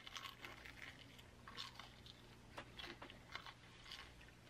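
Faint, close-miked chewing of a battered, fried onion ring: a bite right at the start, then scattered soft crackling crunches.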